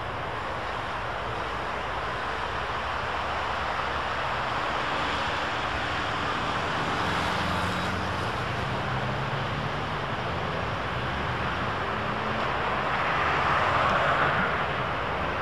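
Road traffic and an approaching electric tram: steady tyre and engine noise from cars on the dual carriageway, swelling about three-quarters through as the tram and passing cars come closer.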